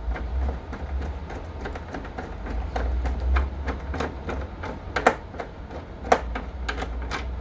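SNI key (security hex tool) turning the security screw of a plastic telephone network interface box: irregular small clicks and taps of the tool in the screw and against the housing, a couple of sharper clicks about five and six seconds in, over a steady low rumble.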